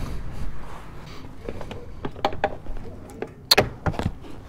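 Scattered clicks and knocks from a petrol pump's fuel nozzle being handled, with the sharpest, loudest clack about three and a half seconds in.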